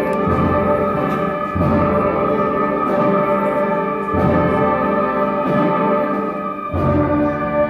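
School concert band playing sustained full-band chords, punctuated by heavy low accents about every two to three seconds.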